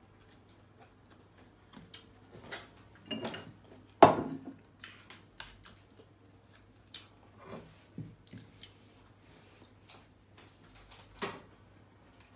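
Light kitchen clatter: scattered clicks and knocks of cookware being handled, the sharpest about four seconds in, over a low steady hum.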